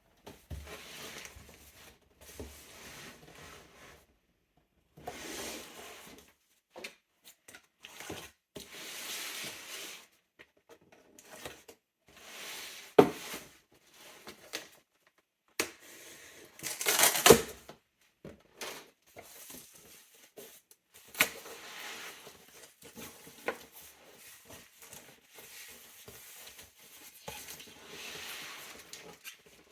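A cardboard box and its packing being handled and opened: irregular scraping and rustling with sharp knocks, and a louder burst of rustling just past halfway.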